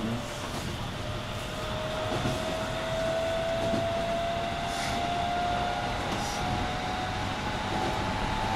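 Shin-Keisei 8900 series electric train with Mitsubishi IGBT VVVF inverter, heard from inside the passenger car. The traction motor whine rises steadily in pitch as the train accelerates, over steady wheel and running noise.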